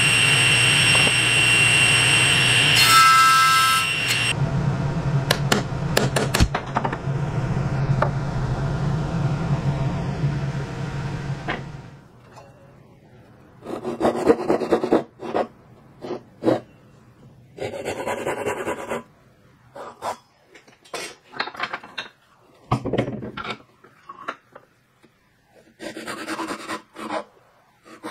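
Table saw finishing a rip cut through a red oak board, the blade's whine stopping about four seconds in and the saw running on with no load until about twelve seconds in. Then a hand saw cuts into the edge of the oak board in short strokes with pauses between them.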